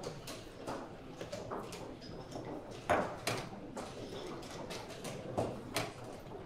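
Wooden chess pieces set down on the board and the chess clock's buttons pressed as blitz moves are played: a run of short clicks and knocks, the sharpest about three seconds in and another at the end, over steady room noise.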